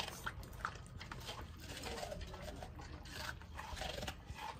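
Two Labrador retrievers and a person chewing and slurping watermelon: many small wet smacks and clicks.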